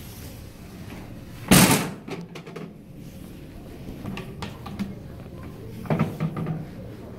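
A wooden toy kitchen cupboard door bangs shut about a second and a half in, the loudest sound, followed by lighter knocks and clatters of the toy kitchen being handled around four and six seconds in.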